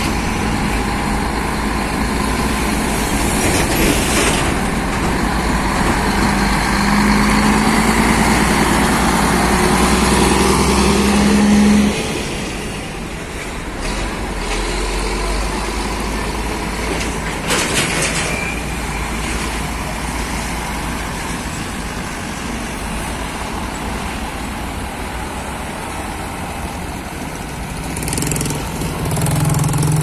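Diesel engines of Scania tractor units hauling loaded lowbed trailers, running under load as they pass close by. The engine note rises a little and then drops off sharply about twelve seconds in, with a few brief air-brake hisses, and another truck's engine comes up near the end.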